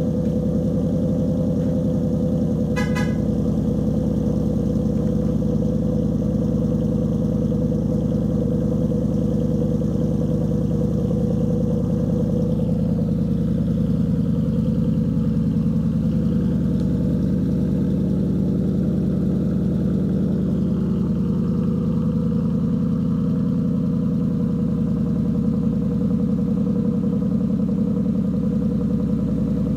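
Ford Mustang GT's 5.0 V8 idling steadily through Borla S-Type mufflers with the resonator deleted, a deep, even exhaust burble just after start-up.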